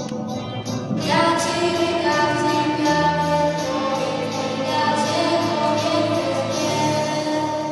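A girl singing a song into a handheld microphone over backing music.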